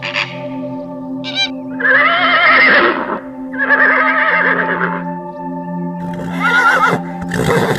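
An animal gives four wavering, high-pitched cries of about a second each, over steady background music; the first two are the loudest.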